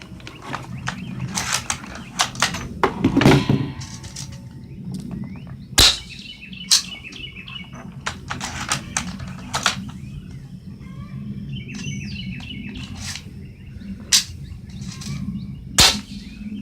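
Spring-powered airsoft guns being fired, cocked by hand: a quick run of sharp snapping shots in the first few seconds, then single shots a second or more apart. Birds chirp between the shots.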